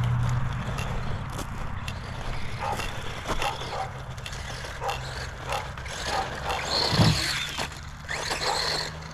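Redcat Piranha 1/10 scale electric RC truggy driving: its motor whines in short spurts, rising sharply about seven seconds in, amid scattered clicks and knocks from the wheels and chassis on the ground.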